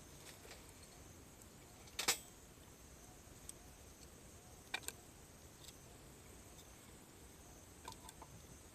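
Cedar firewood burning in a campfire, giving a few sharp crackles and pops: the loudest about two seconds in, a double pop near the middle and a small cluster near the end. A steady faint high chirring of insects runs underneath.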